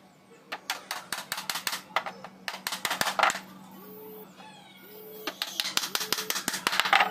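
Hammer tapping small nails into plywood in two runs of quick, light, sharp strikes, the second starting about five seconds in.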